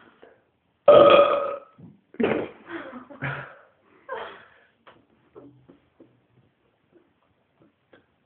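A man belching loudly and at length about a second in, followed by a few shorter, quieter vocal sounds over the next few seconds.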